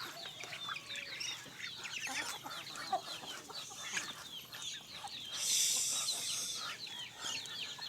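Flock of free-range village chickens clucking, with many overlapping short, high chirps. A brief hissing rustle comes about five and a half seconds in.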